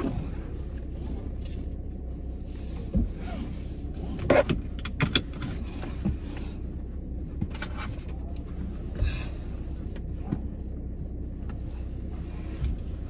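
Steady low hum of a car idling, heard from inside the cabin, with scattered short clicks and knocks, the loudest about four to five seconds in.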